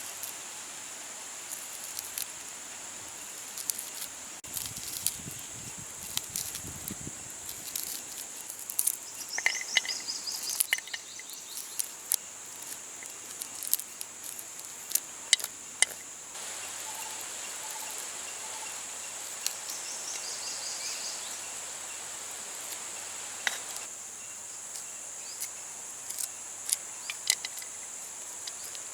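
Insects keep up a steady high-pitched drone, with short sharp clicks and knocks scattered through it and a few brief bird chirps.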